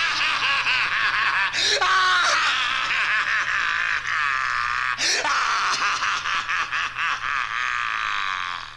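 A voice on a horror sound-effects record shrieking and cackling in a high, wavering pitch without pause, cut off abruptly near the end.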